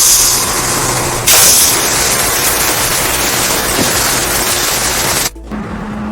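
A loud, steady hiss from a machine just set running. It gets louder about a second in and cuts off suddenly after about five seconds, leaving a low steady hum.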